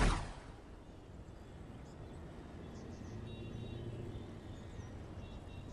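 A short falling whoosh at the start, then steady city ambience: a low rumble of distant traffic with a few faint bird chirps.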